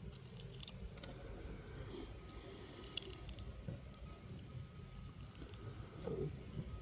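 Steady high chirring of crickets, with a few faint sharp clicks, the clearest about three seconds in.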